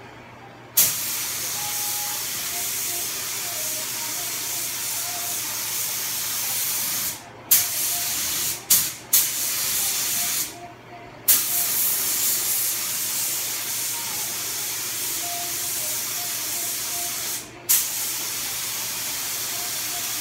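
Air-driven gravity-feed paint spray gun hissing as it sprays. It starts about a second in, and the trigger is let go and pulled again several times, leaving short breaks around seven, nine and eleven seconds in and again near the end. Each restart opens with a sharp burst of air.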